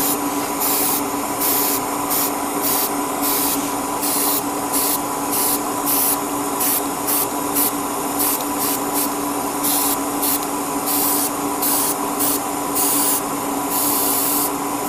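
Airbrush spraying paint in short, light passes: bursts of hiss switching on and off about twice a second, over a steady motor hum.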